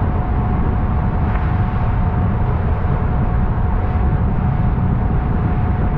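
Buster Magnum motorboat under way in heavy wind: a steady low rumble of the outboard motor, wind and water, with a constant high whine over it.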